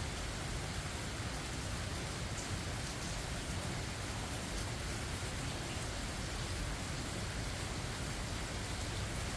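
Steady rain falling: a constant hiss with a low rumble underneath and a few faint ticks of drops.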